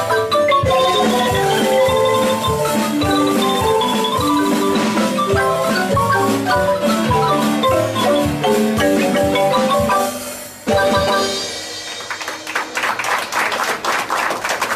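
Marimba music, a quick run of short struck notes over a lower bass line, breaking off about ten seconds in. Near the end a round of clapping takes over.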